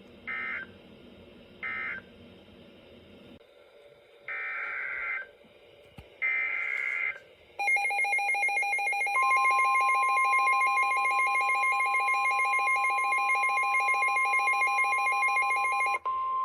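Emergency Alert System tones: two short screeching digital data bursts, the tail of the previous alert's end-of-message code, then two longer data bursts of the next alert's header. After them comes a long electronic alert tone with a pulsing, ringing quality, and a steady higher beep joins it a couple of seconds later.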